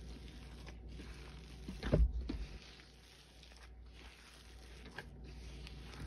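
Gloved hand kneading and squeezing a thick, crumbly paste of Lime Ajax powder cleanser in a stainless steel bowl: a soft crackling, squishing sound, with a louder soft thump about two seconds in as the hand presses the paste down.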